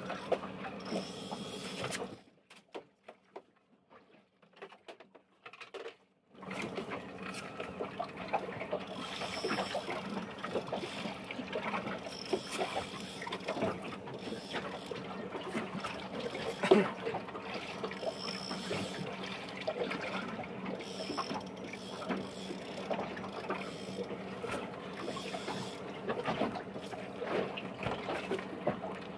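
Fishing reel being cranked: a steady mechanical whir with many small clicks, which stops about two seconds in and starts again about six seconds in.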